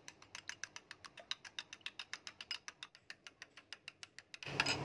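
Metal spoon whisking raw eggs in a small glass bowl, clicking quickly and evenly against the glass about nine times a second, then stopping near the end.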